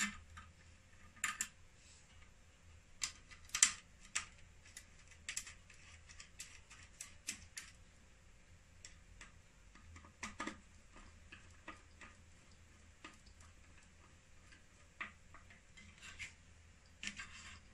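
Irregular small clicks and light metallic clinks as wires and small parts are handled against the inverter's sheet-metal chassis during repair work.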